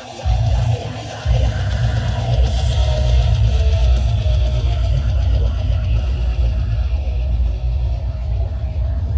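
Guitar-driven rock music played loud through an 18-inch Cat King subwoofer in a sound test, heavy in deep bass. The bass drops out briefly in the first second, then comes back.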